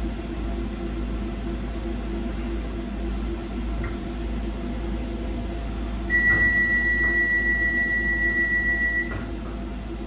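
Docklands Light Railway train's steady low electric hum. About six seconds in, a single high electronic beep sounds and holds for about three seconds.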